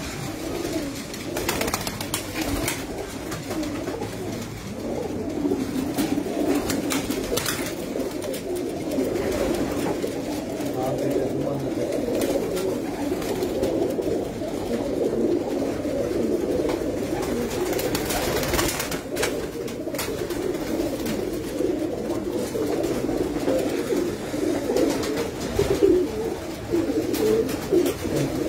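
A flock of domestic pigeons cooing together: a dense, steady chorus of many overlapping coos.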